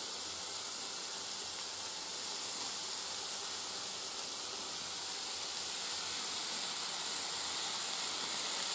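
Soffritto frying in a steel pan: a steady sizzle that grows slightly louder near the end.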